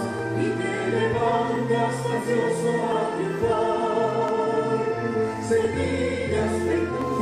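A choir singing a hymn over musical accompaniment, with sustained notes and a steady bass line.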